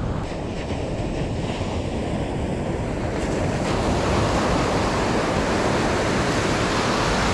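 Ocean surf breaking and washing up the beach, a steady rush of water with wind on the microphone; the rush swells louder about three to four seconds in.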